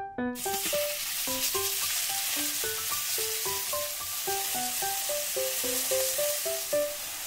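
Seasoned chicken pieces frying in hot oil in a cast-iron skillet, a steady sizzle that starts abruptly just after the beginning. A light melodic background music track plays over it.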